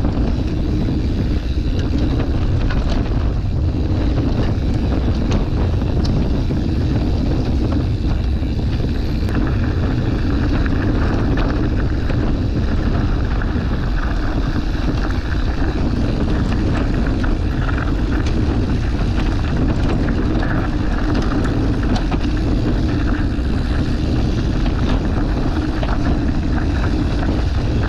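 Wind rushing over the microphone of a camera on a mountain bike riding down a trail. Tyre noise and scattered small clicks and rattles run under the wind.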